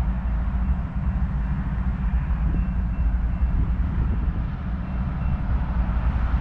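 Wind buffeting the microphone in a low, gusty rumble, over a steady hum of distant engines and road traffic.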